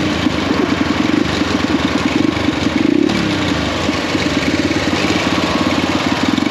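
Small single-cylinder pit bike engine running at low speed close to the microphone, together with a ride-on lawnmower engine just ahead. The revs swell and fall away about three seconds in.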